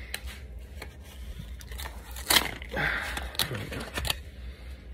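Scattered clicks, crinkles and tearing of packaging being worked open by hand, with some struggle.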